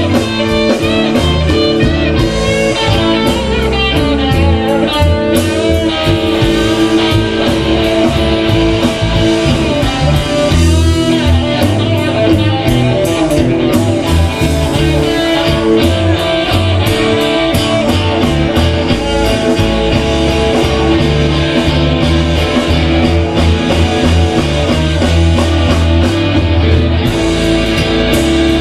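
Live blues-rock band playing loudly: an electric guitar plays lead lines with bent, wavering notes over electric bass and drum kit.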